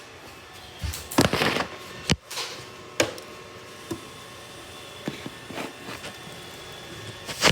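Robot vacuum running with a steady hum, broken by a handful of sharp knocks and scuffs; the loudest come about a second in and near the end.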